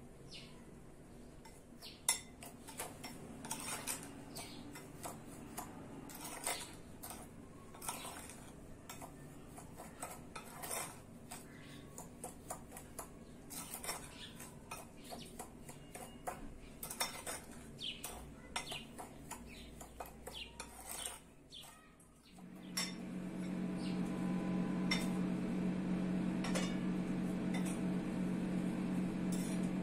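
Metal spoon clinking and scraping against a porcelain bowl of cinnamon sugar in many light, irregular taps. About two-thirds of the way in, a steady low hum comes in under fainter clinks.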